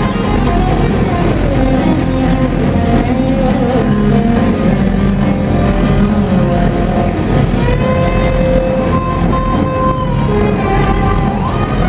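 Live rock band playing loudly: held notes that bend in pitch over a full band with a steady drum beat.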